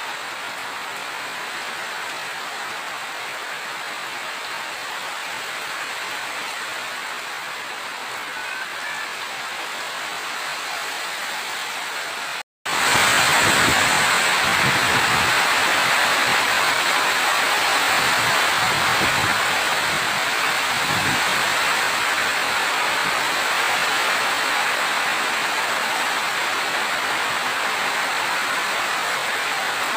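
Steady rain falling. About twelve seconds in the sound drops out for a moment, then comes back louder and fuller.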